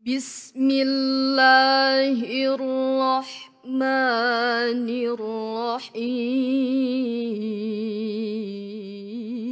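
A teenage girl's solo Quran recitation in the melodic mujawwad tilawah style: long held notes ornamented with wavering melismas, with a brief breath about three and a half seconds in, the melody stepping down in pitch near the end.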